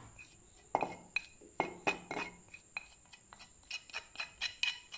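A small plastic spoon clicking and scraping against a ceramic plate as chilli powder is pushed off it. It makes a string of sharp, irregular clinks, a few a second, each with a slight ring, starting just under a second in.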